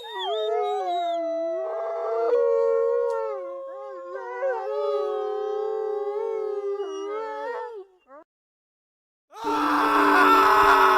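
Several overlapping long howls, wolf-like, gliding up and down in pitch and fading out near the end. After a short silence, a louder, dense, harsh sound starts abruptly about a second later.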